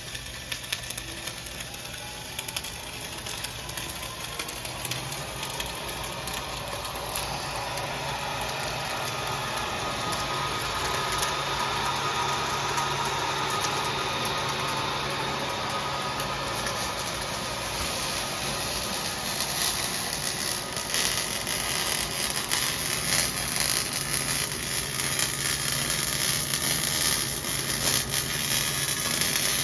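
Wire-feed arc welding: a continuous crackling, sizzling hiss of the arc over a low steady hum, growing louder and more crackly after about twenty seconds.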